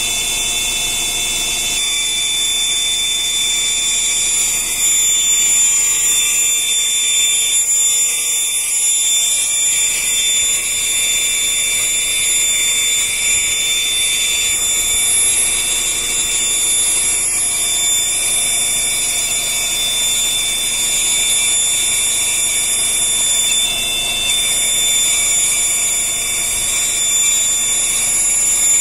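Air compressor running with a steady, loud, high-pitched whistle over a hiss.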